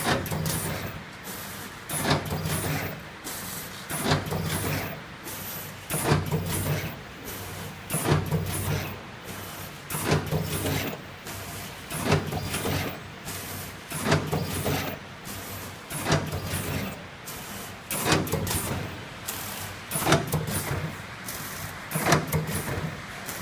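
Bucket-chain vertical form-fill-seal packaging machine running through its bagging cycle about once every two seconds: a steady low hum, with a burst of clacks and hiss each time the film is pulled and the sealing jaws close.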